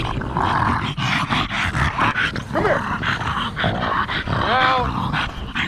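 Two Staffordshire Bull Terriers play-fighting up close: noisy breaths and growly scuffling with knocks of fur and collar against a harness-mounted camera, and two short whining yelps, one about halfway through and one near the end.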